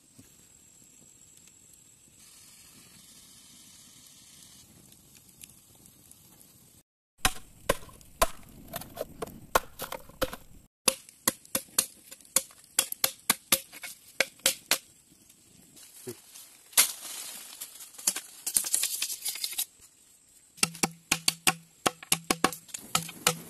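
After a faint start, a machete chopping and whittling green bamboo: rapid series of sharp blade strikes on the cane, with a short stretch of scraping partway through.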